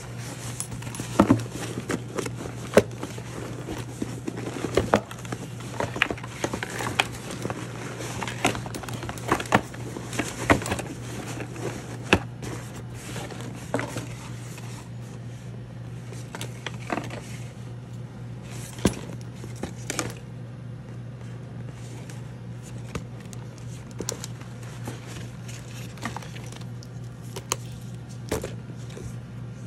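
Tissue paper and packaging crinkling and rustling as a clutch purse is handled in its box, with scattered sharp clicks and taps. The handling is busiest in the first twenty seconds and thins out after, over a steady low hum.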